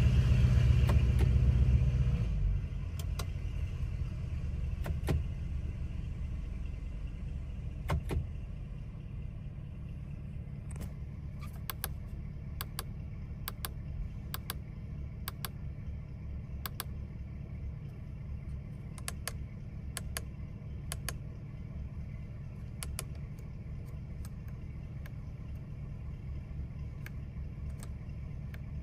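Lamborghini Urus 4.0-litre twin-turbo V8 idling in Park, louder for about the first two seconds and then settling to a steady, quieter idle. Scattered sharp clicks sound throughout.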